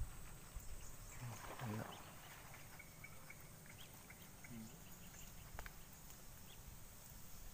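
A faint animal call about a second in, brief and a little louder than the quiet outdoor background, followed later by a short low blip and a single click.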